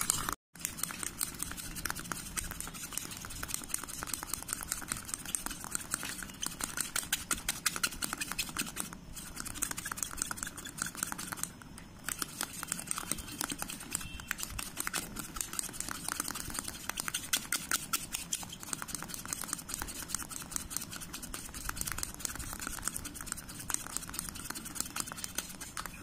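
Metal spoon beating instant coffee, sugar and a little water into a thick, frothy paste in a cup: fast, continuous scraping and tapping of the spoon against the cup, with brief pauses about nine and twelve seconds in.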